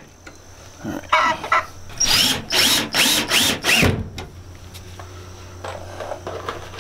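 Cordless drill driving a screw into wood in four short trigger bursts, each whir rising and falling in pitch, about two seconds in. Hens cluck briefly about a second in and faintly near the end.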